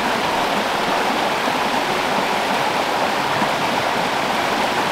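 A cold-water forest brook running over small rocky cascades: a steady, even rush of flowing water that drowns out other sounds.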